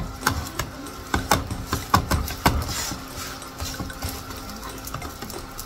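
Wooden spatula knocking and scraping against a non-stick frying pan while working under a frying potato pancake: a quick run of irregular taps and clunks over the first two and a half seconds, then a few lighter ones.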